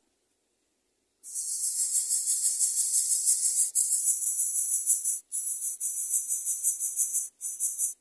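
Greater coucal nestling hissing with its gape open, a high rasping rattle that starts suddenly about a second in and breaks off briefly a few times. It is a coucal chick's hiss, given when it is disturbed at the nest or begging.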